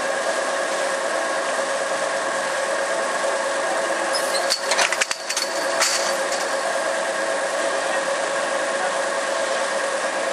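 Steady mechanical hum holding several even tones, with a brief cluster of clicks and knocks about halfway through.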